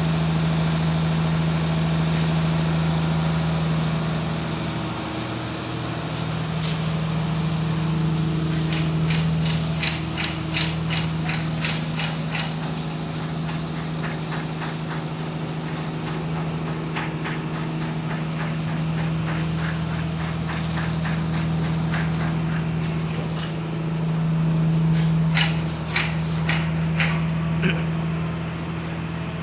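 Two runs of rapid, sharp hammer blows on metal, a few strikes a second, one about a third of the way in and another near the end, over a steady low machine hum.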